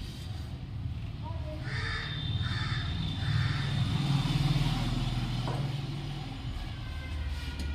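A crow cawing three times in quick succession, over a steady low hum.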